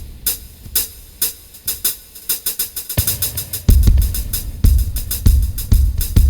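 Drum kit being played: a steady pattern of hi-hat and cymbal strokes, with bass drum kicks coming in about three seconds in and the beat getting louder and fuller from there.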